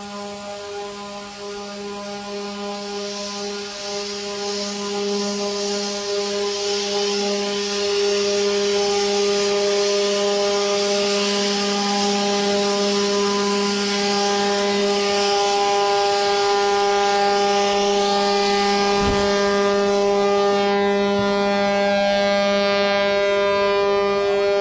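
A long horn blast held at one steady pitch during a ship's airbag launch, over a hiss of the hull rolling off its launch airbags and water rushing, which grows louder about eight seconds in.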